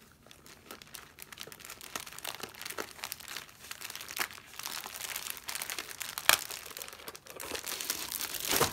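Large clear plastic bag crinkling and crackling as it is handled and pulled open, with sharper crackles about six seconds in and again near the end.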